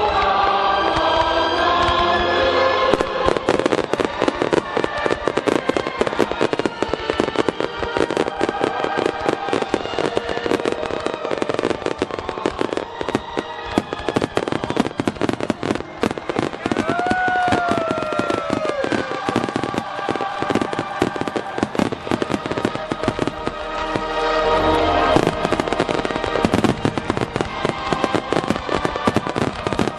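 A dense barrage of aerial fireworks bursts, rapid bangs and crackling, over music played through loudspeakers. The music stands out at first, and the bursts take over from about three seconds in.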